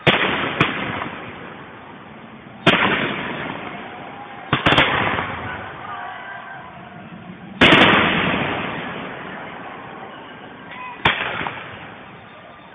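Fireworks shells bursting in the air: a series of sharp bangs a few seconds apart, some in quick pairs, each followed by a long rolling echo. The loudest bang comes about seven and a half seconds in.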